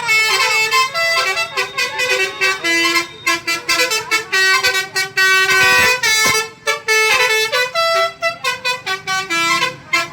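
Bus 'telolet' horn, a set of multi-tone air horns, playing a quick tune: short held notes that step up and down in pitch, sounded on and off in rapid bursts.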